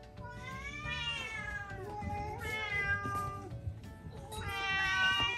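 Domestic cats meowing: three long, drawn-out meows one after another, the last and loudest near the end.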